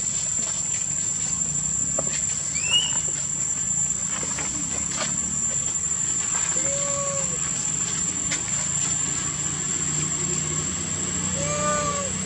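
Baby monkey calls: a short rising squeak about three seconds in, then two short arched coo calls, about six and a half and eleven and a half seconds in. Under them run a steady high insect drone and a low hum.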